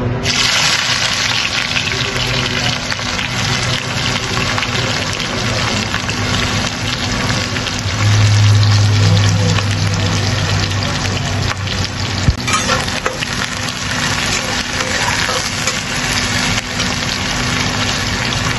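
Onions dropped into hot oil in a pan start sizzling all at once and keep frying steadily. A low hum swells for about three seconds midway.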